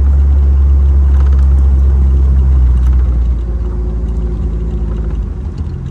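Classic Motor Carriages Gazelle replica Mercedes roadster driving along, its engine running under a heavy rumble of wind on the microphone. The sound grows quieter about three seconds in.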